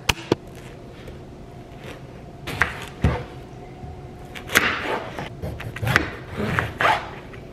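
A large kitchen knife cutting through a watermelon on a cutting board: several separate crunching strokes through the rind, each with the knock of the blade on the board. Two sharp knocks come right at the start.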